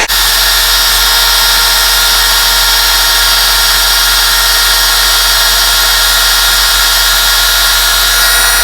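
Small household blender motor running steadily at a loud, even whine, churning a thick seasoning mix with carrots in it that is slow to blend.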